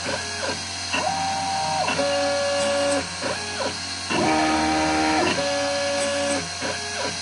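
Stepper motors of a mini CNC milling a circuit board, whining through a string of short moves. Each move is a steady tone lasting up to about a second that glides up as it starts and down as it stops, and the pitch changes from one move to the next, the loudest move coming a little past the middle.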